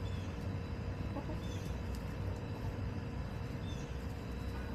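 Backyard hens clucking softly as they forage, with a few short high chirps over a steady low rumble.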